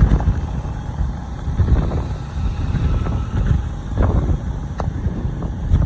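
Road and traffic noise from a moving vehicle among motorbikes and cars, with wind buffeting the microphone in a low, gusting rumble. A couple of short ticks come near the four- and five-second marks.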